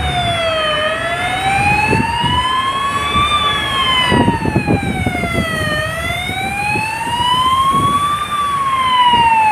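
Ambulance siren wailing slowly, its pitch gliding up and down in a cycle of about five seconds, over the low rumble of traffic driving through floodwater.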